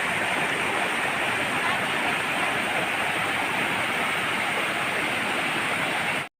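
Steady rush of a waterfall and river water pouring over rocks, cutting out for a moment near the end.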